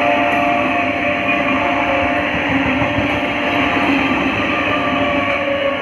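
Indian Railways EMU local train running past close by: a steady rush of wheel-on-rail noise with a steady whine running through it.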